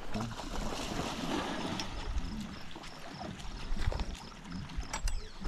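Wind buffeting the microphone, with scattered clicks and taps from footsteps and carried fishing gear.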